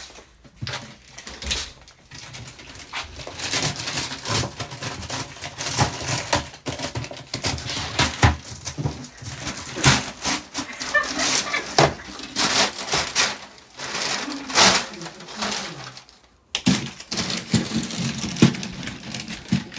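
Wrapping paper being ripped and crumpled by hand in quick, irregular tears.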